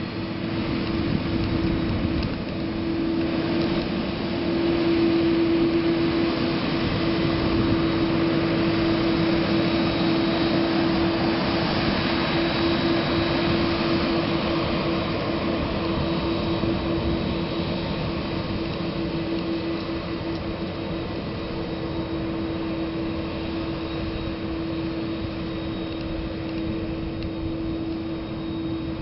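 Jet engines of a twin-engine Airbus A330 airliner at low power as it rolls along the runway: a steady rumble and hiss with a steady droning tone. It is loudest about five seconds in and fades slowly as the aircraft moves away.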